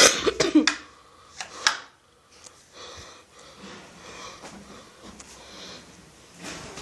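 A person coughing in the first second, mixed with several sharp clicks over the next second or so, then faint shuffling.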